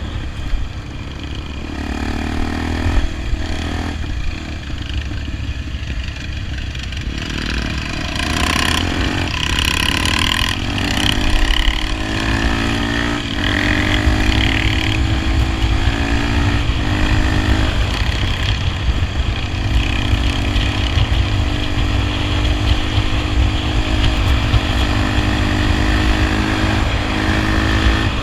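Honda XR 250 Tornado's single-cylinder four-stroke engine running while ridden. Its pitch climbs and drops back several times, over a steady low rumble.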